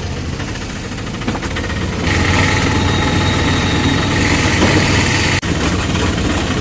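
Auto-rickshaw's small engine running with a steady low rumble and road noise during the ride. The sound grows louder about two seconds in, and breaks off for an instant about five seconds in.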